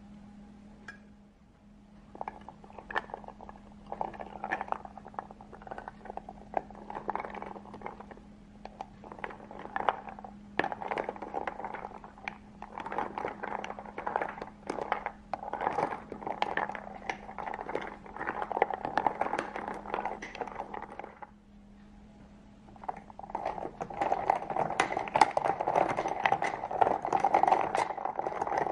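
Ice cubes clinking and scraping against a glass mason jar as whipped Dalgona coffee is mixed into iced milk, in quick irregular clicks that pause for a couple of seconds near the end and then pick up again. A faint steady hum runs underneath.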